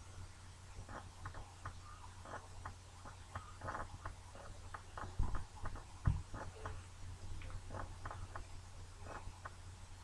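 Faint, irregular light clicks and taps, with two dull thumps about five and six seconds in, over a low steady hum.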